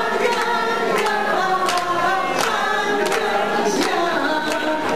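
A group of people singing together while hands clap along in time, about two claps a second.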